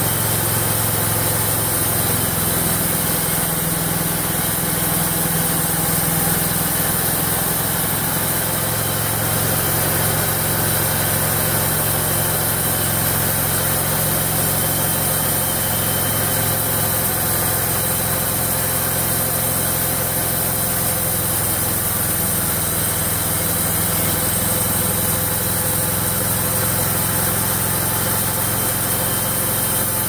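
Homemade bandsaw mill, built from golf cart parts, running steadily under load as its band blade cuts lengthwise through a cedar log: an even engine drone with blade and cutting noise, with no pauses.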